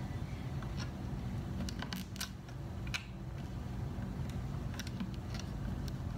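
Scattered small metallic clicks and ticks as steel guitar strings are threaded through and wound onto a Telecaster's headstock tuning pegs, over a steady low hum.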